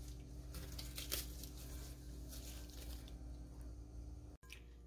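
Faint, scattered crackling and rustling of gloved hands breaking up cornbread and oven-dried day-old bread and crumbling it into a glass bowl.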